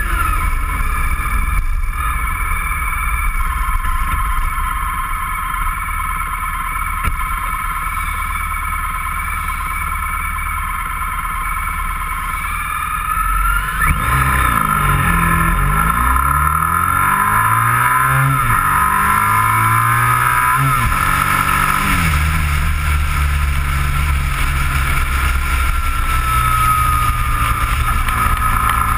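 Motorcycle engine running under way with road and wind noise on the microphone. About halfway through it gets louder, with several seconds of sweeping changes in pitch.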